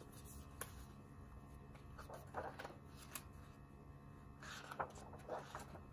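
Picture book being handled and opened, its pages turned: faint paper rustles and a few soft clicks and taps, the clearest rustles about two seconds in and again near the end.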